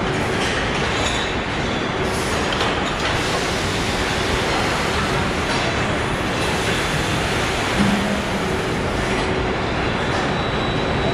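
Steady rumble and clatter of a truck assembly line's conveyors and overhead body carrier running as a pickup body is lowered onto its chassis, with a brief low tone about two-thirds of the way through.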